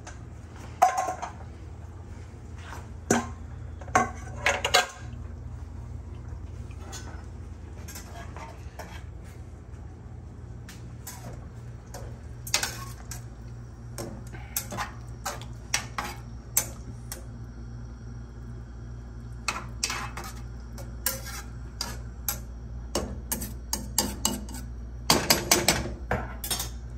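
A metal utensil knocking and scraping against an aluminium frying pan as a tomato and salt-cod sauce is stirred, with a pan lid clattering about a second in. The knocks come irregularly, thicker near the end, over a steady low hum.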